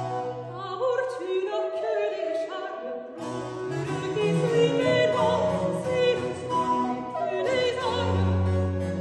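A female singer singing a French Baroque cantata aria, accompanied by flute, harpsichord and cello. The low bass line drops out for about two seconds about a second in, then returns.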